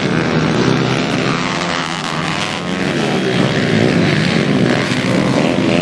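Small pit bike engines racing, revving so that their pitch rises and falls as the riders work the throttle.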